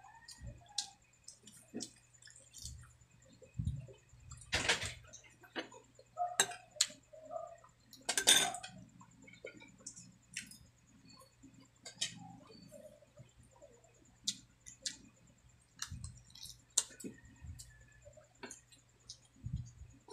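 Close-miked eating of braised pork hock: chewing and lip smacking with many small wet clicks, and two louder, longer sounds about four and eight seconds in.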